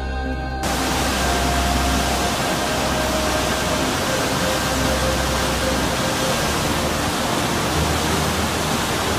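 Rushing brown floodwater of a rain-swollen river in spate, a steady loud rush of whitewater. It cuts in suddenly about half a second in, with soft music continuing underneath.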